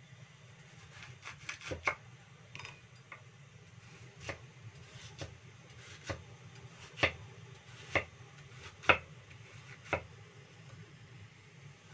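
Chinese cleaver slicing a potato on a thick wooden chopping block: sharp knocks of the blade striking the wood, roughly one a second, with a quick run of cuts about two seconds in.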